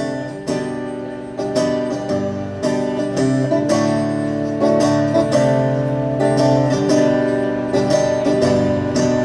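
Instrumental passage of a live song: a guitar strummed in a steady rhythm with held chords.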